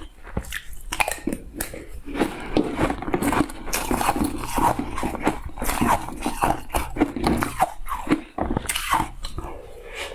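Close-miked biting and chewing of shaved ice, a dense run of crisp crunches and crackles with short pauses between bites.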